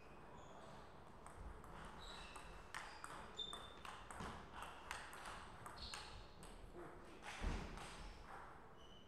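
Table tennis rally: the ball clicking sharply off the bats and the table in quick succession, with a louder low thump about seven and a half seconds in.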